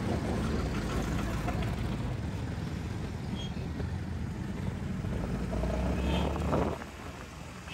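Motorcycle engine running at riding speed, with road and traffic noise around it; the sound drops off sharply near the end.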